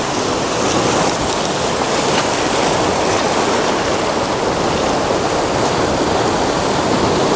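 Ocean surf washing over shoreline rocks: a loud, steady rushing of water.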